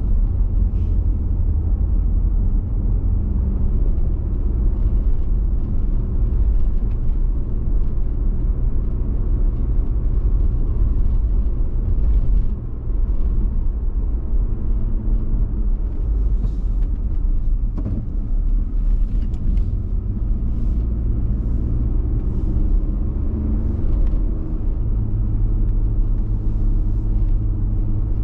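Car engine and tyre rumble heard from inside the cabin while driving up a winding hill road, a steady low drone with faint scattered ticks.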